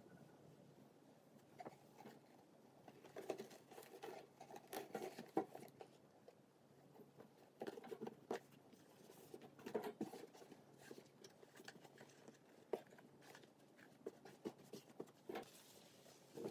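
Faint rustling of a fleece cage liner being handled and spread over the floor of a wire-grid guinea pig cage, in two spells, with a few sharp light clicks near the end.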